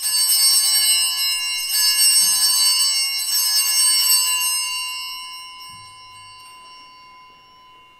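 Altar bells rung at the elevation of the chalice, marking the consecration at Mass: a jangle of several bell tones starting sharply, rung again a little under two seconds in, then ringing on and slowly fading away.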